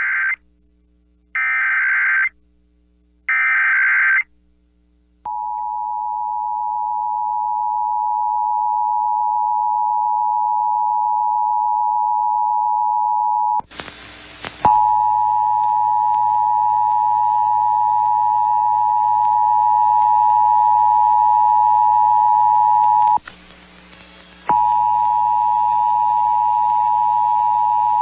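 Emergency Alert System test signal: three short bursts of the digital SAME header data, then about a second later the steady two-tone EAS attention signal. The attention tone drops out briefly about halfway through and again about five seconds before the end.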